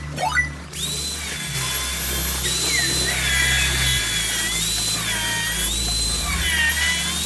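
Power tool cutting square steel pipe: a steady high whine with a hiss, the pitch dipping and recovering several times as it bites into the metal.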